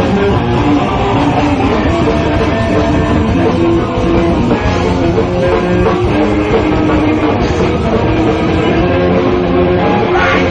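A live heavy metal band playing at full volume: distorted electric guitars holding sustained riffs over continuous drumming, with no vocals.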